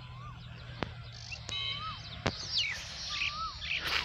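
Birds calling: a short whistled note that rises and falls, repeated about every one and a half seconds, with other higher chirps and quick falling twitters around it. Two sharp clicks, one about a second in and one past the two-second mark.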